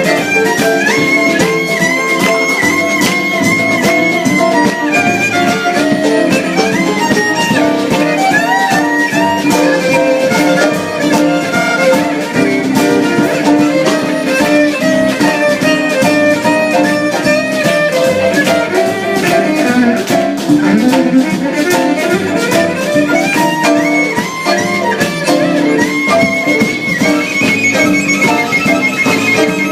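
Instrumental music with fiddle melody over guitar, at a steady beat.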